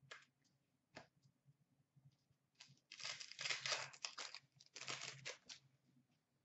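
A trading-card pack wrapper being torn open and crinkled by hand, in two rustling bursts about three and five seconds in, after a light click about a second in.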